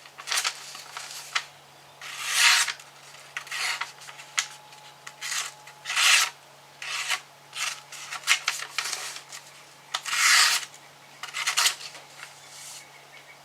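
A tanto-blade folding knife's edge drawn in more than a dozen short rasping strokes at irregular intervals, a few of them longer and louder, as its sharpness is tried.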